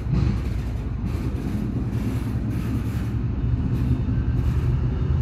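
Class 68 diesel-electric locomotives, Caterpillar V16-engined, running at a steady low drone as they move slowly along the line.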